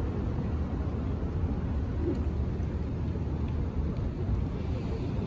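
Steady low rumble of wind buffeting the microphone outdoors.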